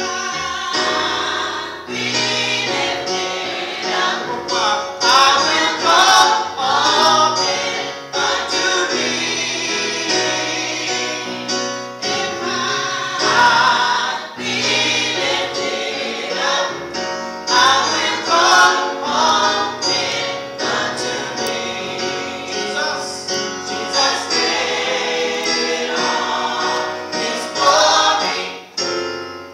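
Small gospel choir of women singing together, accompanied by an organ that holds steady chords underneath the voices.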